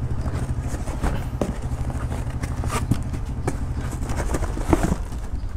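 Cardboard box and packing being handled while an amplifier board is lifted out: scattered rustles, scrapes and light knocks over a steady low hum.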